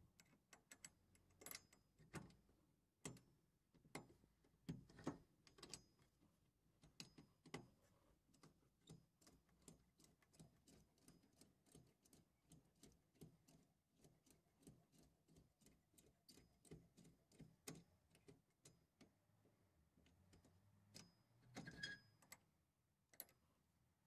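Faint, irregular metal clicks and ticks of a key being turned in a homemade screw-mechanism padlock, a few clicks a second, with a louder cluster near the end.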